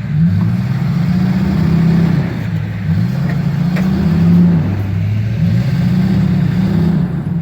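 Ford Excursion's V10 engine with Flowmaster exhaust revving up and down in several swells as the stuck truck tries to reverse out of the snow without getting free.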